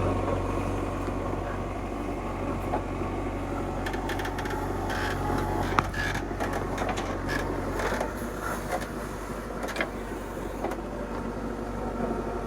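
Heavy diesel machinery running steadily, with scattered knocks and rattles through the middle of the stretch, as a backhoe loader works mud into tractor trolleys.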